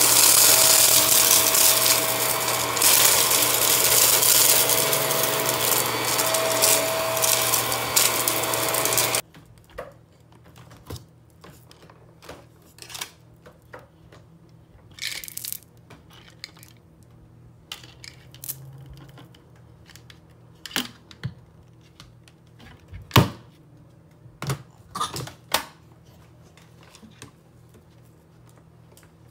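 Hart cordless vacuum running on carpet with a steady motor hum and a held tone. About nine seconds in it cuts out abruptly as its battery dies. What follows is quiet, with scattered clicks and knocks as the dead vacuum is handled and pushed over the carpet and debris.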